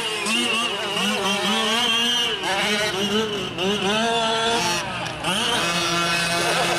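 Small two-stroke gasoline engines of 1/5-scale RC trucks revving up and down as they race, their pitch rising and falling with the throttle, with more than one engine heard at once.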